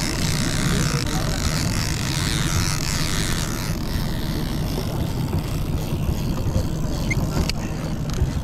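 Fishing boat's engine running with a steady low rumble. A rushing hiss lies over it for the first few seconds and then drops away, and there is one sharp click near the end.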